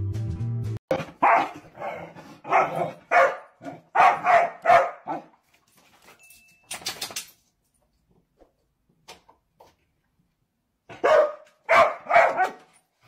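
A dog barking in a fast string of short, sharp barks for about four seconds, then after a long pause a few more barks near the end.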